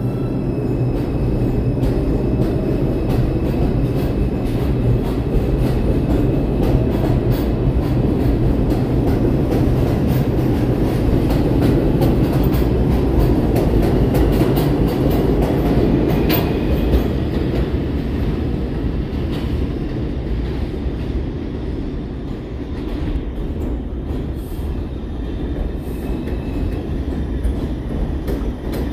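New York City Subway 2 train pulling out of an elevated station: steady heavy rumble of the wheels on the rails with a clickety-clack over the rail joints, easing off somewhat in the second half.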